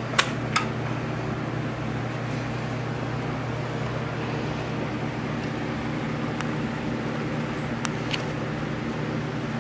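A steady low machine hum, with a few short, sharp clicks and taps from hands and tools working on parts in an engine bay.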